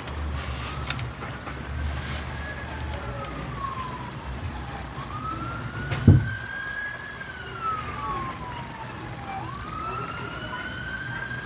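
Emergency vehicle siren wailing, its pitch slowly rising and falling about three times, over the low rumble of road noise from the moving vehicle. A single thump about six seconds in.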